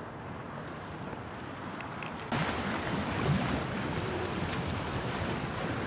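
Strong wind rushing over the microphone, with choppy river water splashing; the noise jumps suddenly louder about two seconds in.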